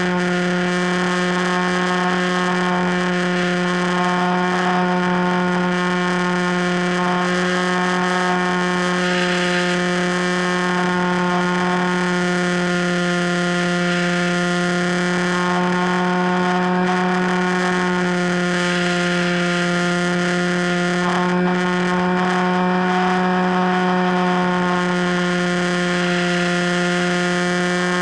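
Electric motor and propeller of an FPV Raptor radio-controlled plane running at a steady throttle: a steady droning whine with many overtones, its pitch wavering slightly, over a light hiss.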